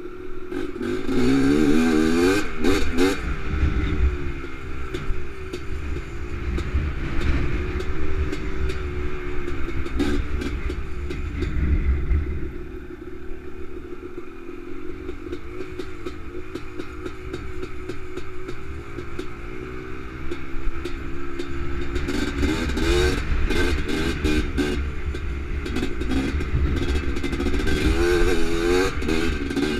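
Honda TRX250R quad's two-stroke single-cylinder engine being ridden hard along a dirt trail, its pitch rising and falling as the throttle opens and closes. It eases off about a third of the way through and revs up again in the last third, with knocks and rattles from the machine over rough ground.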